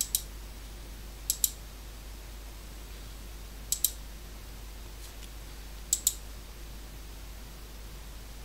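Computer mouse clicks, four in all, each heard as two quick ticks a fraction of a second apart, over a steady faint hiss and low hum.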